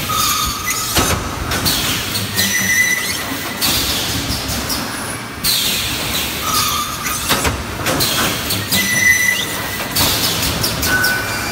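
Vertical EPS 3D panel wire mesh welding machine running through its cycle: air cylinders hissing, metal clunks and short squeals, the sequence repeating about every six and a half seconds.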